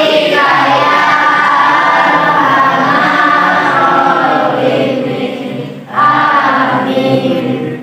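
A class of schoolchildren chanting a prayer together in unison, a sung group recitation. The voices drop away briefly about six seconds in, then start again.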